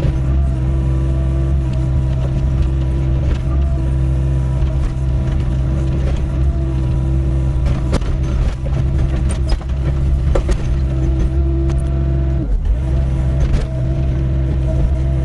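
Doosan 55W wheeled excavator's diesel engine running steadily under hydraulic load while digging, with occasional knocks as the bucket works stony ground.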